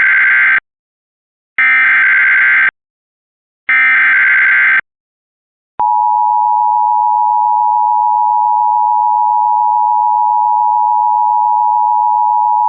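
Emergency alert broadcast header announcing a severe thunderstorm warning. Three loud, screechy digital data bursts about a second long and a second apart are followed, about six seconds in, by a long steady alert tone.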